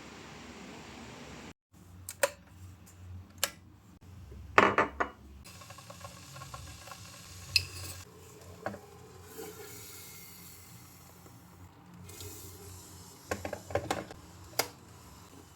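Dishes and cutlery being handled: a scattered series of sharp clinks and knocks, the loudest cluster about five seconds in and another run of clinks near the end.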